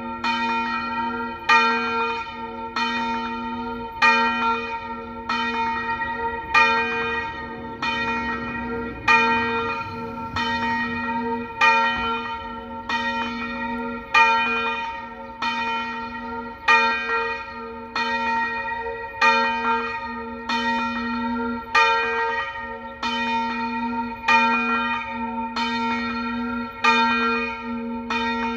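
Three church bells swung Tyrolean-style in a full peal, tuned to a slightly flat B-flat, D and F. Their strokes fall about every second and a bit in an uneven, overlapping pattern, each one ringing on under the next.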